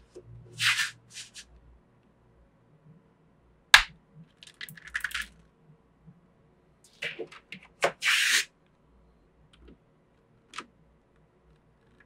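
Small magnetic balls clicking and clattering as rings and discs of them are handled and set down: several short bursts of crisp rattling and a few sharp single clicks.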